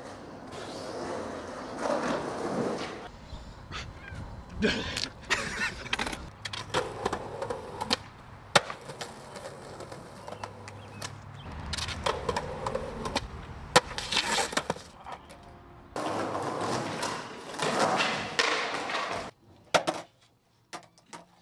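Skateboard wheels rolling on concrete, with sharp clacks of boards popping and landing and a few louder hard impacts; the sound changes abruptly several times and drops away briefly near the end.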